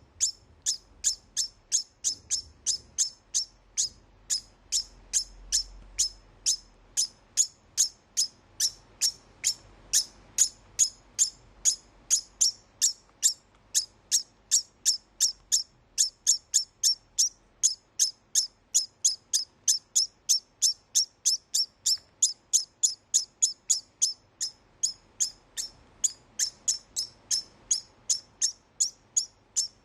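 Male degu giving a long, evenly spaced series of short high-pitched chirps, about three a second. This is its post-mating call, said to tell other males to keep away from the female it has just mated with.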